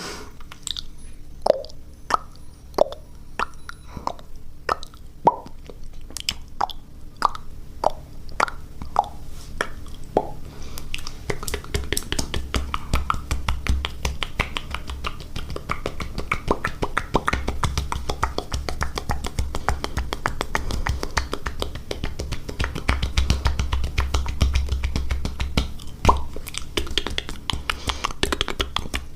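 Close-miked mouth sounds: separate tongue clicks and pops, roughly two a second, for about the first ten seconds, then a dense, fast stream of wet clicking over a low rumble.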